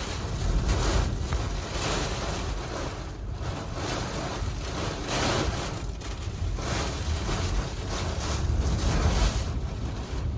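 Hurricane-force wind blowing in gusts that swell and fade every second or so, with a deep rumble of wind buffeting the microphone.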